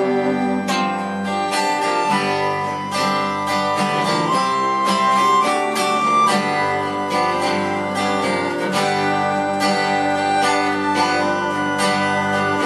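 Instrumental passage of a folk song: acoustic guitar strummed in a steady rhythm over an upright bass line, with a melodica holding long notes of the melody.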